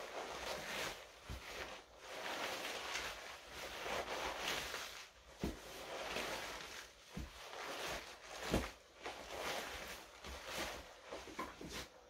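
Rustling, swishing handling of torn pieces of shiny black leggings fabric as strips are lifted and trampled, with a few soft thumps of boots on a wooden floor.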